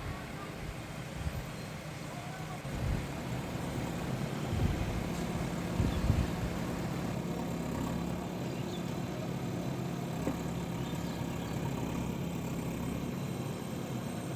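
JCB excavator's diesel engine running steadily with a low hum, with a few dull low thumps in the first half.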